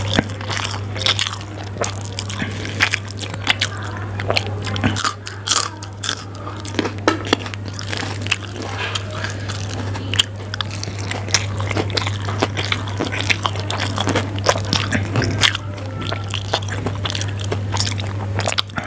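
Close-miked chewing of mouthfuls of instant Maggi noodles eaten by hand, a dense run of short wet mouth sounds over a steady low hum.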